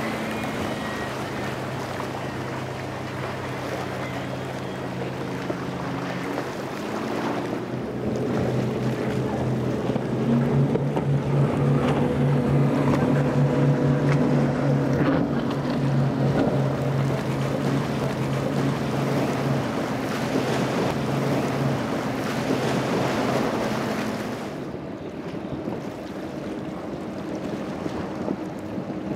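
Outboard-powered boats running fast through choppy water, a steady engine drone over rushing spray, with some wind on the microphone. The drone changes about seven seconds in, from a single Yamaha 150 outboard to twin Yamaha 300 outboards, and again near the end, where it drops quieter, to a Midnight Express's five Mercury 450R outboards.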